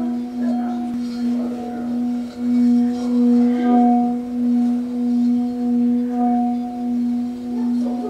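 Hammered metal singing bowl sounding a sustained low hum with a few higher overtones. The tone swells and fades about one and a half times a second.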